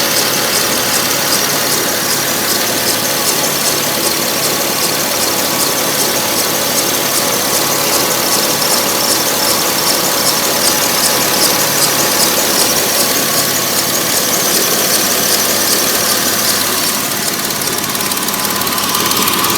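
Porsche 997 Carrera S's 3.8-litre flat-six running steadily, with a fast, even ticking and a high-pitched squeal over the engine note; the owner thinks it sounds odd.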